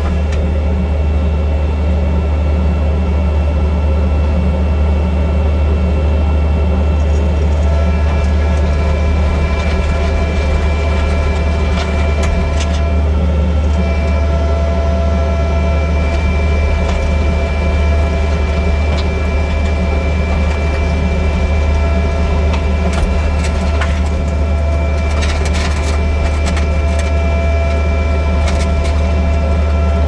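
Kubota SVL65-2 compact track loader's diesel engine running steadily at a constant speed, heard from the operator's seat, with a deep hum and a steady whine over it.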